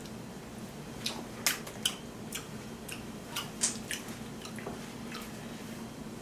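People eating shellfish from a seafood boil: irregular sharp cracks and clicks of shells being broken open, with wet chewing. A faint steady hum runs underneath.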